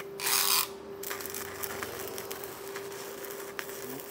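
Stick (MMA) welding arc from an inverter welder with a 3.2 mm electrode on rusty thick steel. A short loud hiss about half a second in as the arc is struck, then a steady crackling sizzle as the rod burns, over a steady humming tone.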